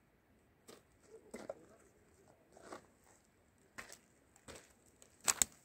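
Footsteps crunching on gravel, about one step every two-thirds of a second, getting louder as they come closer near the end. Before them come a few soft scrapes and rustles.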